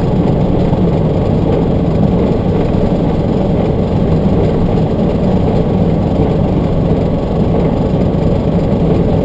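Steady engine and tyre noise inside the cab of a moving vehicle on an unpaved road, an even low rumble.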